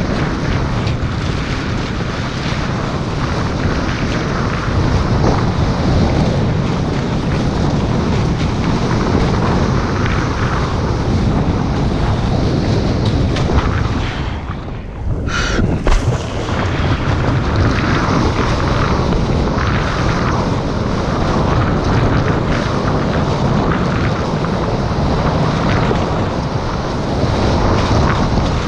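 Heavy wind buffeting an action camera's microphone, mixed with the rush of water and spray from a kiteboard skimming the sea. About halfway the rush briefly drops away, then a single sharp knock.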